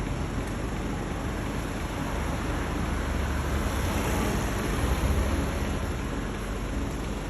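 Garbage truck running: a low diesel engine rumble that swells twice under a steady rushing noise.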